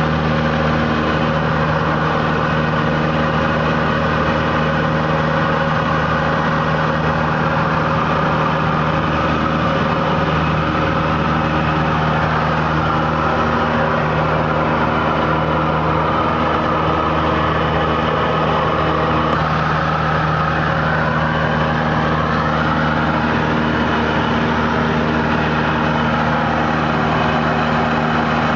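Cessna 172Q Cutlass's four-cylinder engine and propeller droning steadily in flight, heard inside the cabin. A higher tone dips and then rises again around the middle.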